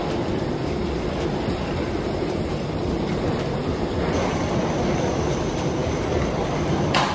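Steady rumbling background noise of a busy airport terminal hall, with a short knock near the end.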